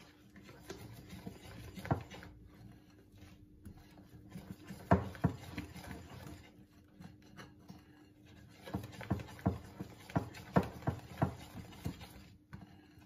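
Metal balloon whisk stirring thick batter in a ceramic bowl: soft wet scraping with sharp clicks as the whisk knocks the bowl, once about two seconds in, twice about five seconds in, and in a quick run of about eight near the end.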